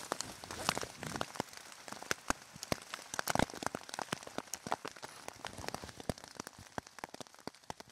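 Rain falling in forest, with many separate drops striking close by as sharp ticks over a steady faint hiss, and a heavier thud about three and a half seconds in.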